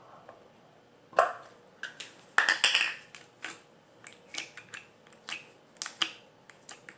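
Homemade slime being handled and squished, making a string of sharp sticky clicks and small pops, with the loudest ones about a second in and again around two and a half seconds in.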